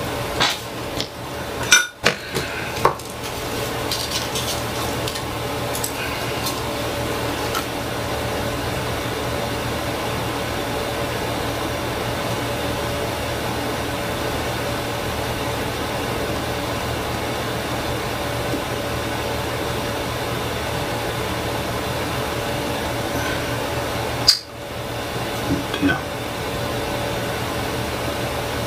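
Small clicks and clinks of electronic components and tools handled on a workbench, several in the first three seconds and a few more near the end. Underneath is a steady background hiss with a constant hum.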